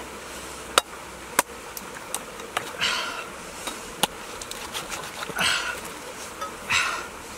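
Machete blade working the husk of a green coconut: several sharp knocks as it strikes, then three short scraping cuts through the fibrous husk.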